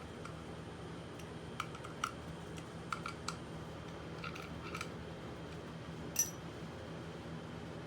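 Light, scattered metal clicks and clinks of new clutch plates and parts being handled and fitted into a dirt-bike clutch basket, with one louder ringing clink about six seconds in, over a steady low hum.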